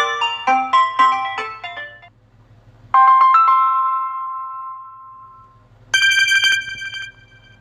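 Samsung Galaxy S21 stock ringtones and notification tones played one after another. A quick marimba-like ringtone melody ends about two seconds in. A short chime of a few notes follows about three seconds in and rings away slowly. A bright, tinkling run of quick notes comes about six seconds in.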